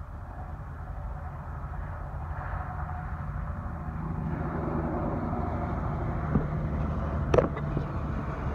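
Diesel semi truck passing on the road, its low engine rumble growing louder. A sharp click comes near the end.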